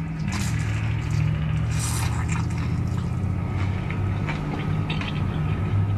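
Wet, close mouth sounds of someone eating an egg roll: scattered slurps and licks, over a steady low hum.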